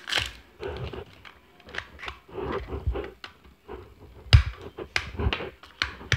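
Plastic wrapping on an L.O.L. Surprise toy ball crinkling and rustling as it is handled and peeled, in irregular crackles with a few sharper taps.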